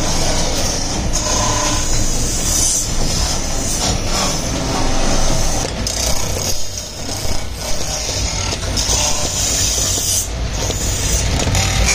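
Belt-driven lathes running off an overhead line shaft, a steady mechanical rumble. Over it, a hand-held cutting tool scrapes a spinning brass diya piece in repeated passes, a high hissing scrape that stops and starts.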